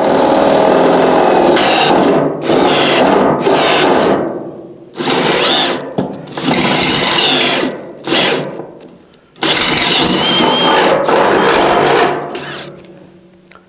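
Cordless drill boring through the sheet-steel wall of an old oil tank, run in three long bursts with short pauses between them.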